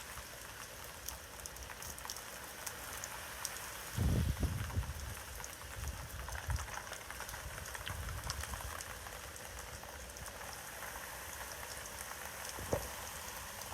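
Steady rain with a hiss of many small drops from a hurricane, broken by low rumbling gusts of wind on the microphone about four seconds in and again around eight seconds.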